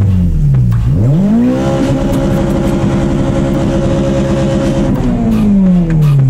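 A car engine at full throttle in a street drag run. Its pitch climbs sharply about a second in, holds at high revs for about three seconds, then falls away as the revs drop.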